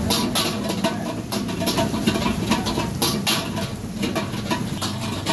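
Irregular sharp clacks and knocks of cooking tools at a parotta stall, about two or three a second, over a steady low hum.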